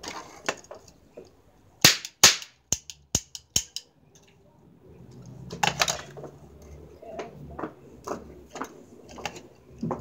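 Toy cap gun firing five caps in quick succession about two seconds in, the first two cracks the loudest. Then a run of small clicks and handling noise.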